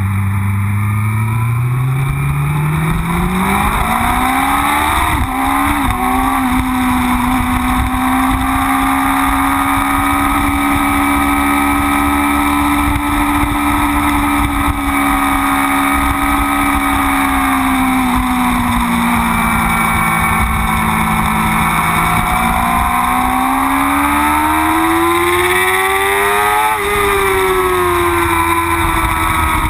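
Yamaha R6 race bike's inline-four engine heard onboard, pulling away from low speed with its pitch climbing over the first few seconds. It holds high revs, eases down, climbs again and drops off sharply near the end.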